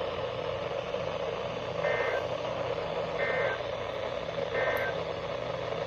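Three short two-tone data bursts of an Emergency Alert System SAME header, about 1.4 s apart, over a steady background hiss. The bursts mark the start of an emergency alert broadcast.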